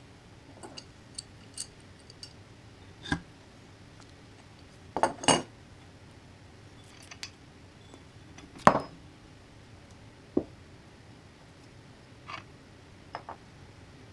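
Metal tools and parts being handled on a workbench: scattered clinks and knocks, a dozen or so, with the loudest about five and nine seconds in.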